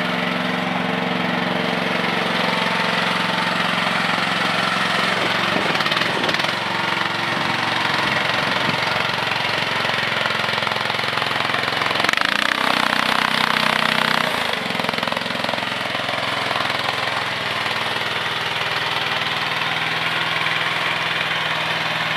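CFG QK18R mini excavator's engine running steadily. Its note shifts a few times, and a louder, rougher stretch comes about twelve to fourteen seconds in.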